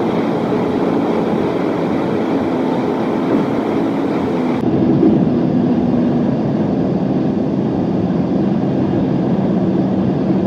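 Toyota Corolla Grande driving at motorway speed: a steady rush of tyre, wind and engine noise. About four and a half seconds in, the highest part of the hiss drops away suddenly.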